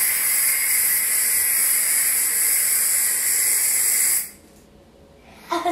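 Aerosol can of silly string spraying in one long, steady hiss through a trigger-gun attachment, cutting off about four seconds in.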